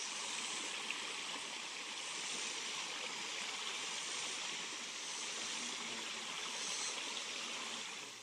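Shallow creek water trickling over flat rock ledges, a steady rush that fades out at the very end.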